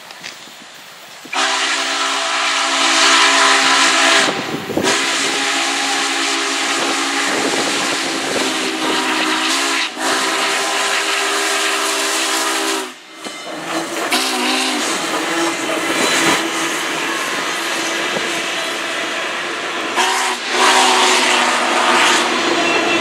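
Union Pacific 844, a 4-8-4 steam locomotive, blowing its chime steam whistle in several long blasts and a short one as it sounds for a grade crossing. Steam hissing and the train rolling past fill the gaps, and the whistle sounds again near the end.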